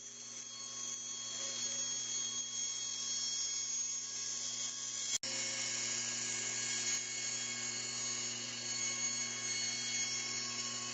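Power tool running steadily while cutting away the outer layer of laminated birch plywood, with a steady motor hum under the cutting noise; it drops out for an instant about five seconds in.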